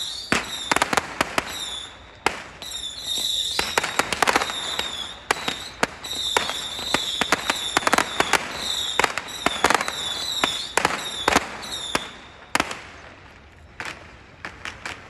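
Firecrackers going off in rapid, dense cracks, with a high whistle sounding again and again over them. After about twelve seconds the popping thins out to a few scattered bangs.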